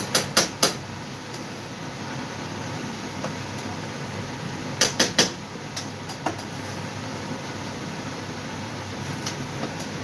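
A cooking utensil knocking against a stainless steel pot: three or four quick taps right at the start, three more about five seconds in, and a few lighter ones afterwards. A steady mechanical hum runs underneath.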